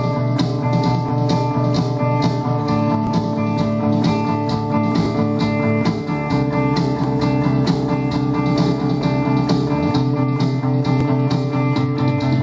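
Live band playing amplified electric guitars and a bass guitar through an instrumental passage, with sustained chords over a steady beat.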